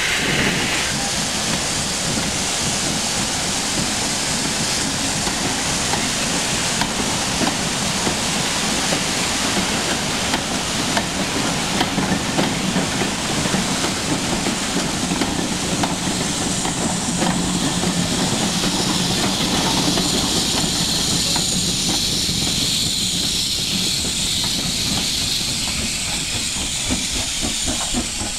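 A steam-hauled train moving slowly past: a continuous hiss of steam over the rumble and clatter of the coach wheels on the rails. The hiss grows stronger in the second half as the locomotive draws near.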